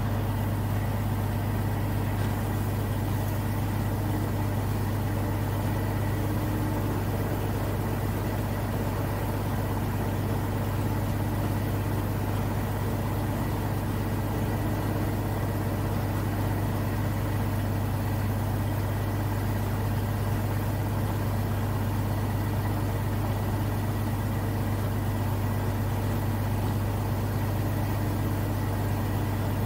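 Zlín Z-42 light aircraft's six-cylinder Avia M 137 piston engine and propeller running at a constant speed, a steady low drone.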